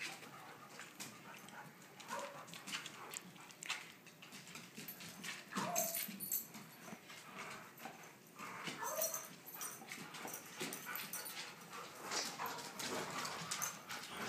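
Two dogs playing tug-of-war over a rope toy, giving a few short whines and yips now and then among soft scuffling and clicking sounds.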